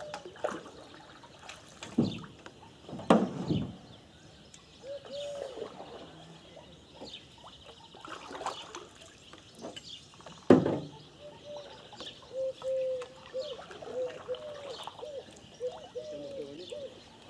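Birds calling at dawn, with a run of short, low, arching coo-like notes starting about five seconds in and coming more often towards the end. A few loud knocks break in, about two and three seconds in and a louder one about ten seconds in.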